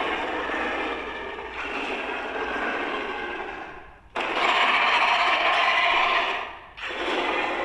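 Raspy, hissing sound effects made with a person's mouth and throat, in long noisy stretches. The sound cuts off sharply about four seconds in, resumes at once, and breaks again briefly near the end.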